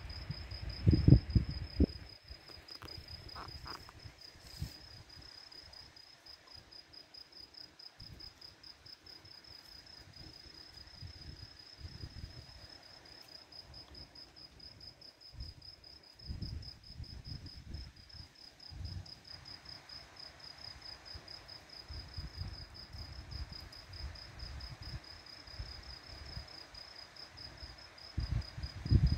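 A steady, high-pitched insect trill of rapid even pulses, like crickets at night. Under it come irregular low rumbles and thumps, loudest about a second in and again near the end.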